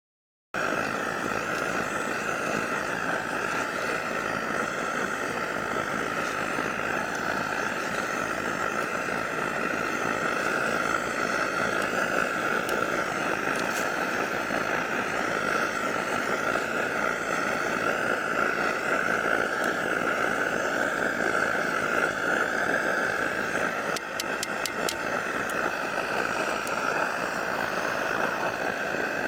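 SVEA 123 white-gas stove burning with a steady hissing roar, with a few light clicks about three-quarters of the way through.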